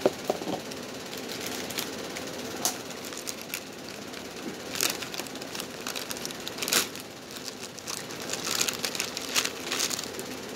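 Close-up eating sounds: chewing and scattered wet mouth clicks, with a paper napkin rustling against the face midway through.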